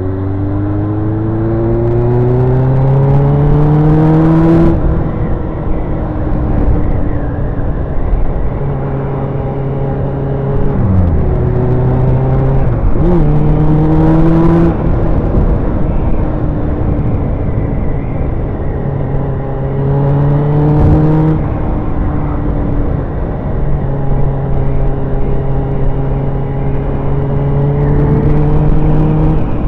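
Sport motorcycle fitted with a new exhaust, ridden at road speed: the engine note rises through the first few seconds, drops sharply at a gear change about five seconds in, then runs mostly steady with brief dips, over a constant rush of wind noise.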